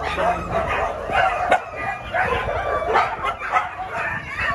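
A pack of free-roaming street dogs barking over one another in a fight, many barks overlapping without a break. The speaker takes it for a territorial clash: dogs from another group crossing into this group's ground.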